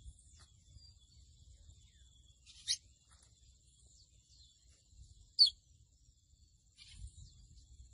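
A seedeater (mochuelo, 'pico de plata azul') giving sparse, short, high chirps, each a quick downward sweep; the two loudest come about a third and two thirds of the way through. A faint, steady high-pitched whine runs underneath.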